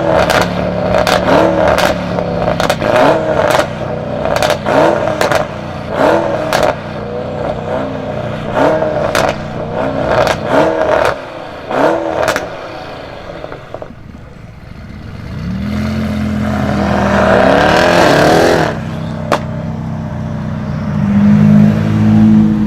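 A sports car engine is blipped over and over in quick short revs, about one every second, with sharp pops and cracks at each blip. After a short lull it is revved up in one long rise that cuts off sharply, then settles back to a lower steady running note.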